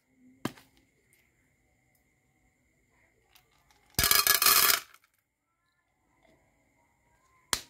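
Small candy-coated candies poured from a plastic tube into an empty metal tin, a dense rattling patter of pellets on metal lasting under a second about four seconds in. A short click comes about half a second in and another sharp click near the end.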